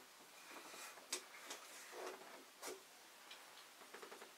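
Near silence broken by a few faint, short clicks of the chrome shower mixer valve's parts being handled and tugged.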